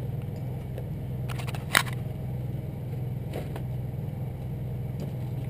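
A vehicle engine idling steadily, with one faint click about two seconds in.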